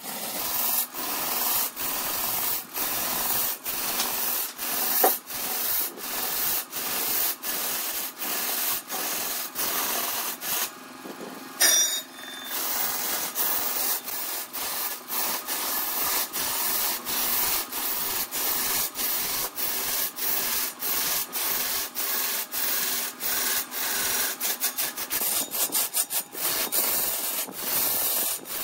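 A turning tool scraping and cutting red incense wood spinning on a lathe, a steady rasping hiss that pulses about twice a second. It drops away briefly about ten seconds in and comes back after a sharp knock.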